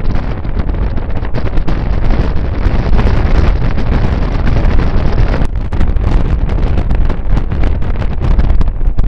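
Wind buffeting the microphone held out of a moving passenger train's open window, over the low rumble of the train running along the track. The noise is loud and gusty throughout.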